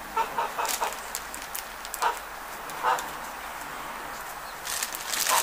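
Chickens clucking in short calls: a quick run in the first second, single clucks about two and three seconds in, and another near the end, with scattered light clicks.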